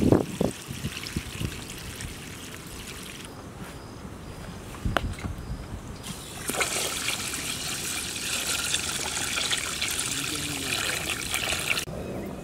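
Water splashing as rice-washing water is drained by hand from an aluminium pot. Then, from about six seconds in, a steady stream of water is poured from a plastic jar into a metal bowl, and it cuts off abruptly near the end.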